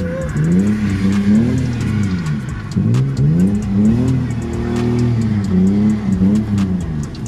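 BMW E30's engine revving up and down again and again during a drift on wet pavement, heard from inside the cabin. The revs climb and drop back about every second or two.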